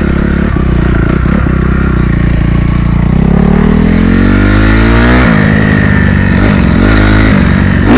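2016 Honda CRF250R's single-cylinder four-stroke engine running under a rider: a steady note for the first couple of seconds, then revving up over about two seconds. About five seconds in the revs drop suddenly, then rise and fall several times with short throttle changes, climbing again near the end.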